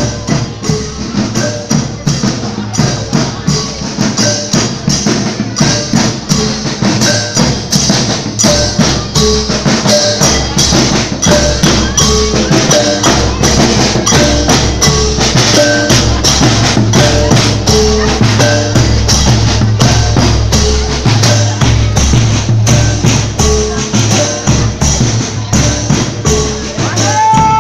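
Music with quick mallet-percussion notes like a marimba or xylophone over a fast, steady beat of drums and wood-block hits.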